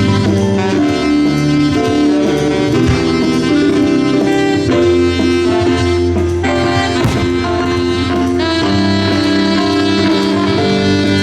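Live jazz band playing a slow tune, a horn melody over a bass line.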